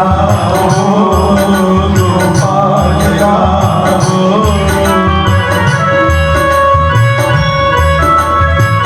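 Devotional kirtan music: a wavering sung or played melody over harmonium and a steady hand-drum beat, settling into sustained harmonium chords about halfway through.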